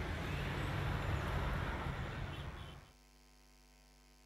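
Steady outdoor rumble and hiss that cuts off suddenly about three seconds in, leaving a faint steady electrical mains hum.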